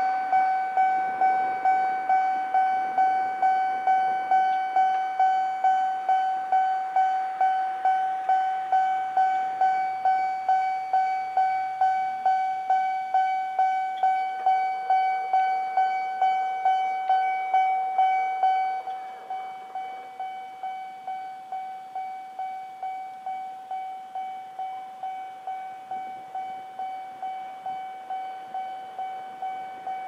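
Japanese level-crossing warning bell ringing, an electronic ding repeated in an even rhythm of about two and a half strikes a second, warning of an approaching train. About 19 seconds in it steps down to a noticeably quieter level once the crossing barriers are down.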